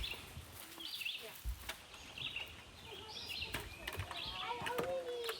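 Faint, indistinct voices in the background with birds chirping repeatedly, and a few short light knocks.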